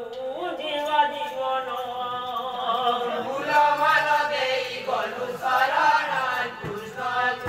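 Male voices singing a chant-like song, with long held, wavering notes.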